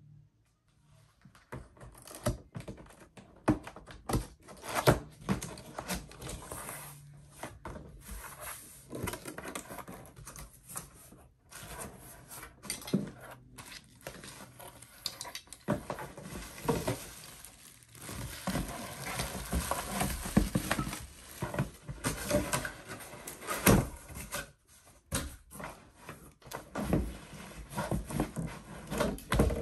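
Cardboard box being opened and unpacked by hand: flaps handled and paper packing pulled out, giving a run of irregular rustles, scrapes and knocks.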